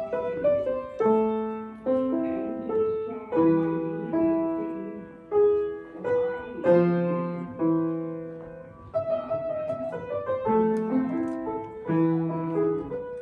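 Solo piano music: a slow, gentle melody over chords, each note struck and left to fade, about one new note or chord a second.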